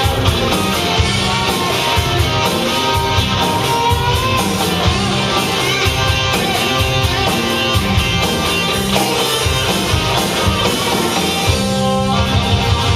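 Rock band playing: distorted electric guitar, bass and drums in a steady beat.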